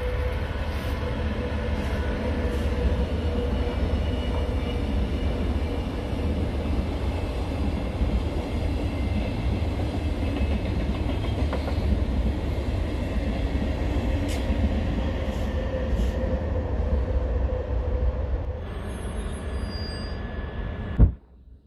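Passenger train running on the tracks: a steady low rumble with a faint whine. It eases off near the end and then cuts off abruptly after a sharp click.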